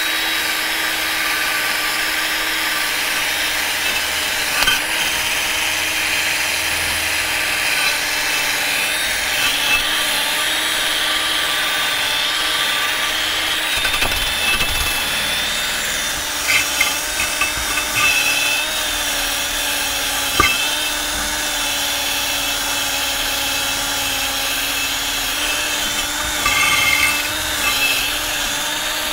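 Electric drill running steadily with an abrasive rust-removal brush, scouring corrosion off a rusty steel car wheel. The motor holds one steady pitch under a rough, scratchy rasp that changes as the brush is pressed and moved over the metal, with a couple of brief knocks.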